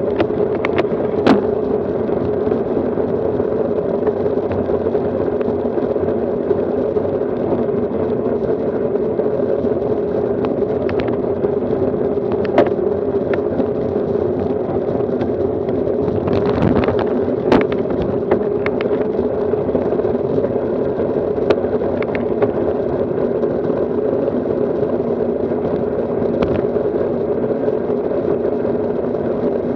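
Steady rush of wind and road vibration picked up by a camera mounted on a road bicycle riding along a lane, with occasional sharp knocks as it jolts over bumps in the surface.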